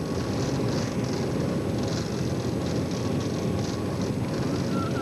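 Steady jet airliner noise, an even rumble and hiss that holds at one level.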